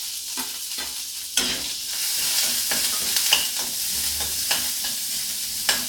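Onion, curry leaves and dried red chillies sizzling in hot oil with mustard seeds and urad dal as a South Indian tempering, stirred in the pan with scattered clicks and scrapes. The sizzle gets louder about a second and a half in.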